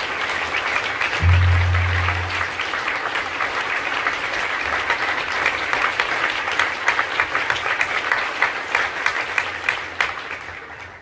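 Audience applauding steadily with many hand claps, fading away near the end. About a second in, a loud low steady tone sounds for about a second under the clapping.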